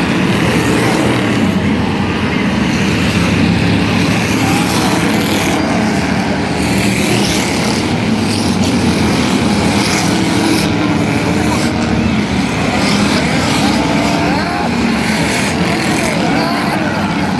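Demolition derby vehicles' engines running loud and steady, a dense low drone with no pause.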